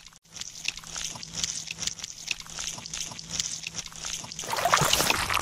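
Wet sloshing and many small squelchy clicks of shallow muddy water being stirred, as of an eel sliding through it; it grows louder near the end.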